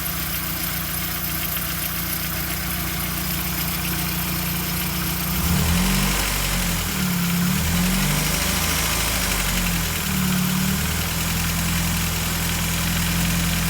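Volkswagen AP four-cylinder engine running at idle, the engine the owner says is making a noise. About five seconds in, its speed rises and falls several times, then settles back to a steady idle near the end.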